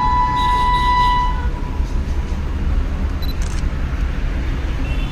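Distant train horn holding one long steady note, cutting off about a second and a half in, over a steady low rumble. A few faint short high chirps come later.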